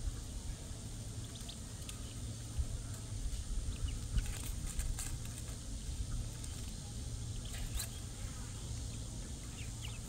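Ducklings foraging in grass and dry leaves: scattered soft rustles and pecks with a few faint, short high peeps, over a steady low rumble.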